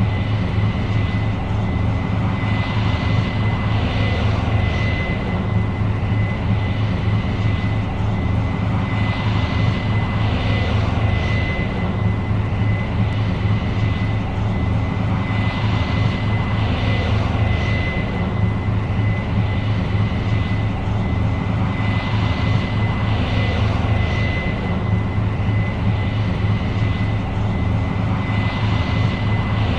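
Case IH 8230 Axial-Flow combine running while harvesting soybeans: a steady low engine drone with a constant high whine over it and a hiss that swells and fades every second or two.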